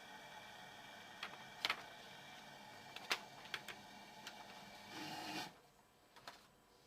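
A handful of sharp, irregular clicks and taps over a steady low hum, then a short noisy rustle about five seconds in, after which the background drops quieter.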